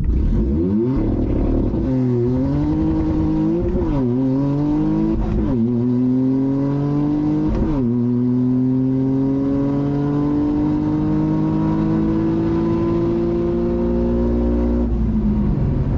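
Toyota GR Yaris's turbocharged 1.6-litre three-cylinder engine at full throttle on a quarter-mile drag pass, heard from inside the cabin. The revs climb and fall back at four quick gear changes in the first eight seconds, then rise slowly in the last gear until the throttle is lifted near the end.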